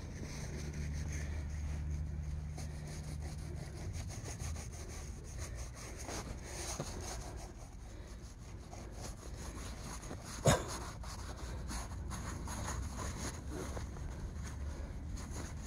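A hand rubbing and smearing tear mender glue over tent canvas: an irregular scratchy rubbing that comes and goes. One sharp knock stands out about ten and a half seconds in.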